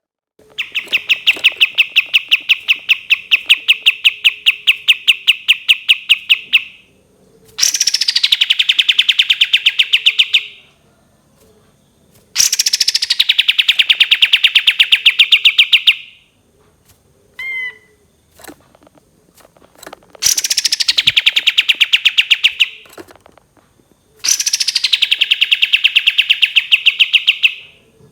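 Kapas tembak songbird giving long, very rapid machine-gun trills of repeated notes, five in a row, each lasting about three to six seconds. The later trills each open with a pitch falling from high before settling into the steady rattle.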